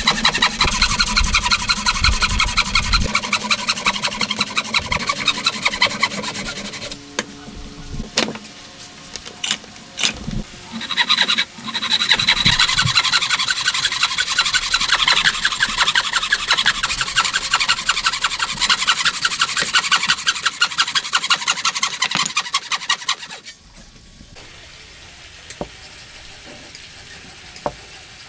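Hand frame saw cutting into a wooden block with fast, even back-and-forth strokes. The sawing breaks off about seven seconds in, with a few knocks, starts again a few seconds later, and stops for good about two-thirds of the way through, leaving only a low, steady background.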